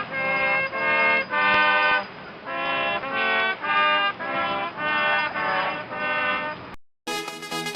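Military brass band playing a tune in short phrases of held chords, trumpets and trombones to the fore. It cuts off abruptly near the end, and after a brief silence a different, brighter piece of music begins.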